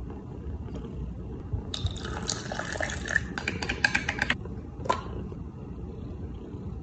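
Kitten suckling milk from a feeding bottle: wet sucking and slurping, thickest in a run of crackly clicks from about two to four and a half seconds in.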